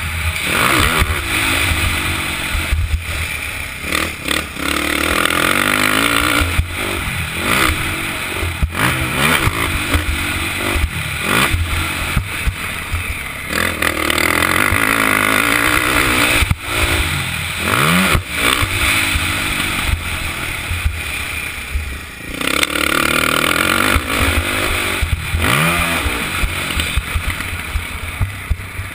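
KTM 450SX four-stroke single-cylinder dirt bike engine ridden hard round a motocross track, the revs rising and falling again and again through throttle and gear changes, with short drops in level as the throttle is shut. Heard from a helmet camera, with a heavy low rumble of wind on the microphone.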